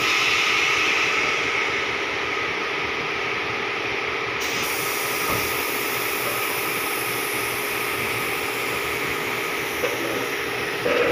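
Steady hiss of running workshop machinery with a faint steady hum under it, a little louder in the first couple of seconds.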